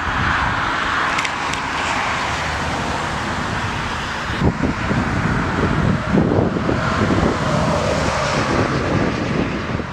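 Boeing 757 jet engines running as the airliner rolls out after a crosswind landing, a steady loud roar, with gusty wind rumbling on the microphone in the second half.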